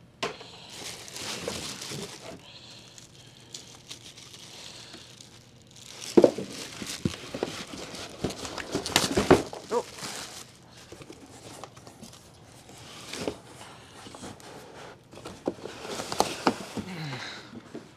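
Packaging crinkling and rustling as parts are unwrapped and handled, with scattered knocks and clicks; the loudest bursts come about six and nine seconds in, and again near the end.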